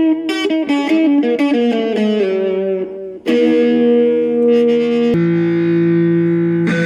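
Background music: electric guitar playing quick picked notes, then held chords from about three seconds in.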